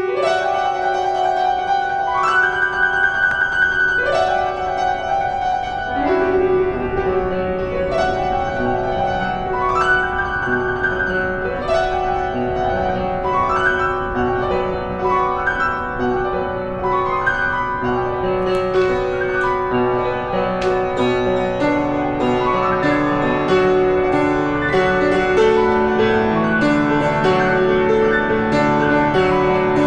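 Classical piano music: a held note under rising phrases that come about every two seconds, growing fuller with lower notes in the second half.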